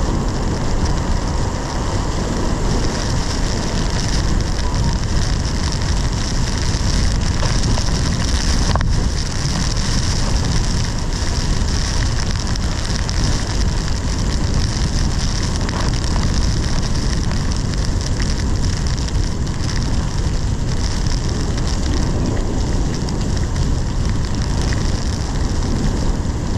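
Heavy wind-driven rain beating steadily on a car's windshield and body in a severe thunderstorm, with strong wind, heard from inside the car.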